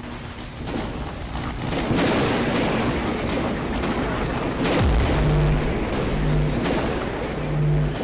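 Cinematic logo-intro sound effects over music: a rushing build-up full of crackles, a deep boom about five seconds in, then a low bass note pulsing three times.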